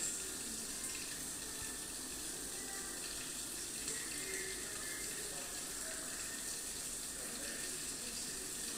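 Sesame, coconut and jaggery syrup sizzling steadily in a nonstick pan over the flame while being stirred with a spatula, as the syrup cooks down and the mixture thickens.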